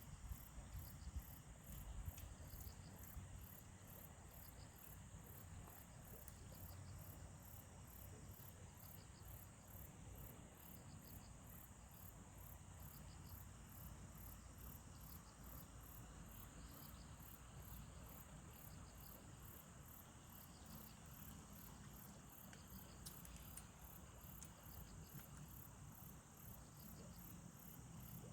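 Crickets and other insects chirping faintly: a high pulsing trill about twice a second, with shorter chirps from a second insect every second or so. A low rumble is heard in the first couple of seconds.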